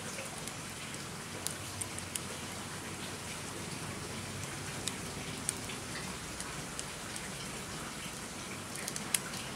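Small wood fire burning in an open hearth: a steady hiss with scattered sharp pops and crackles.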